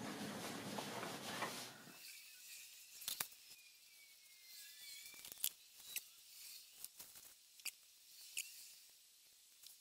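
Small handling clicks and taps of a Walbro WG8 carburettor and a screwdriver as the carburettor is taken apart by hand, with about half a dozen sharp clicks spread a second or so apart. A soft rustling hiss for the first two seconds.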